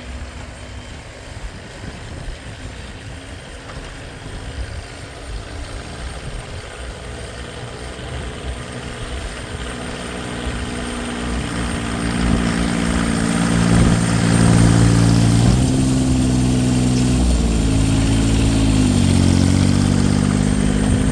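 Small Lo-Boy tractor engine running while pushing snow with its plow. It gets louder over the first dozen seconds, then runs loud and steady, its pitch sagging and recovering a few times in the second half as the load comes on.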